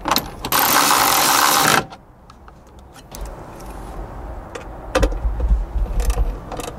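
Cordless electric ratchet running under load for about a second and a half, driving a bolt home. It is followed by a hand socket ratchet being worked through a fastener, with scattered sharp clicks and a few low knocks.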